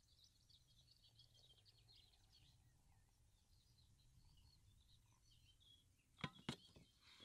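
Faint birdsong, many small high chirps one over another, over a low hum of outdoor ambience. Near the end, a couple of sharp knocks stand out as the loudest sounds.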